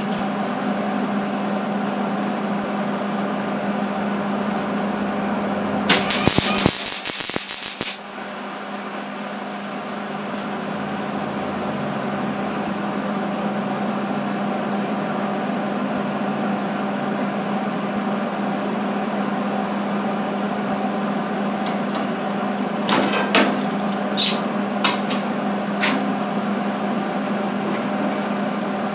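MIG welder tack-welding a sheet-steel patch panel into a pickup bedside: one arc crackle lasting about two seconds about six seconds in, then a quick run of short tack bursts near the end. A steady electrical hum runs beneath throughout.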